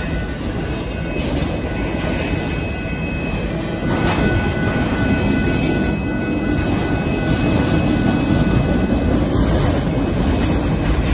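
Union Pacific freight train of autorack car carriers rolling past: a steady heavy rumble of wheels on rail, with a few clacks over rail joints and a faint steady high-pitched wheel squeal.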